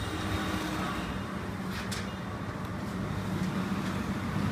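Steady low rumble and hum of background noise, with a faint click about two seconds in.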